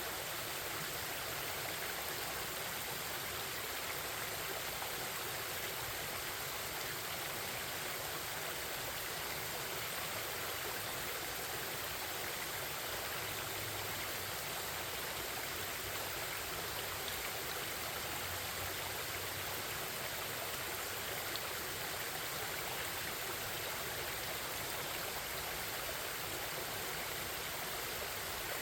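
Forest stream flowing: a steady, even rush of babbling water.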